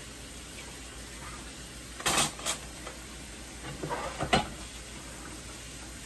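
Dishes and utensils clattering in a kitchen sink during hand washing: a pair of sharp clinks about two seconds in, then a run of knocks ending in a louder clack a little past four seconds, over a steady hiss.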